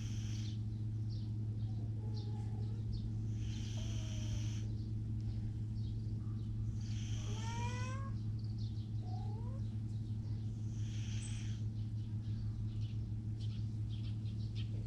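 Sleeping cat snoring: a raspy, hissing breath about every four seconds over a steady low hum.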